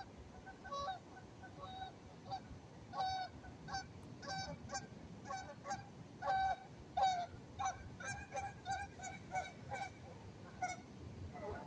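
Geese honking: many short calls, coming faster and overlapping from several birds in the second half.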